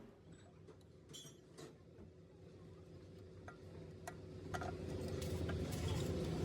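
Light metal clinks and taps, a few scattered knocks through the first half, over a faint steady hum; a low rumble builds steadily louder over the last few seconds.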